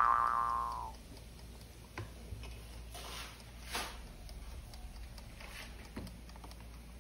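A cartoon boing sound effect fades out in the first second. Then comes faint ticking, with a few light clicks from an Ikon air fryer's mechanical timer knob as it is turned to set the cooking time.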